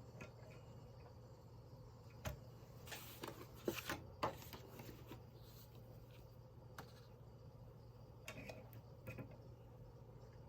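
Faint scattered clicks and light rattles from handling a Mignon No. 4 index typewriter, with a small cluster of clicks about three to four seconds in, over a low steady hum.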